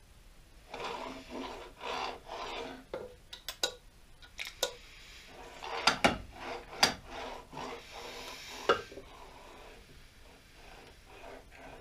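Steel hand tools scraping and rubbing on a metal lathe's cast-iron cross slide and compound while a gib screw is fitted. Sharp metal clinks come through it, the loudest about six to nine seconds in.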